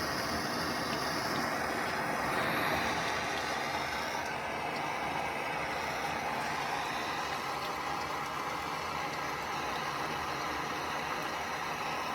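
Handheld gas torch flame burning with a steady hiss, heating a hardened steel blade to draw its temper colour.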